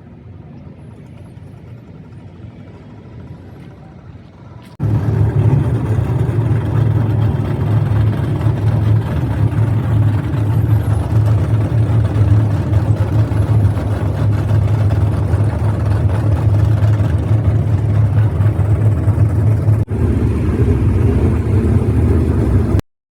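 Race car engines running loud and steady on a speedway. A quieter stretch of engine noise gives way abruptly, about five seconds in, to the loud, sustained sound of the cars, which stops suddenly near the end.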